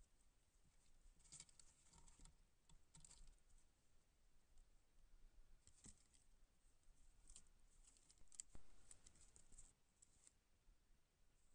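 Faint, irregular scratching and clicking of a wolverine clawing and chewing at a wooden log box trap, tearing pieces off the logs.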